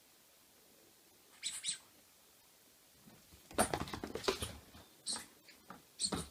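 Two short high squeaks, then a whippet puppy's paws and claws skittering and scrabbling on a wooden floor as it dashes about, with more high squeaks mixed into the clatter.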